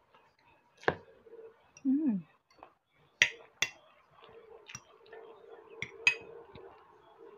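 A metal fork clinking against a glass plate while twirling noodles, about six sharp clinks spread over several seconds. About two seconds in there is a short vocal sound from the eater.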